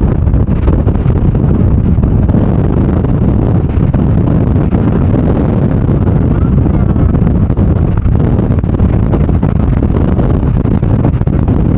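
Strong gale-force wind buffeting the microphone: a loud, steady, low rumbling roar with no breaks.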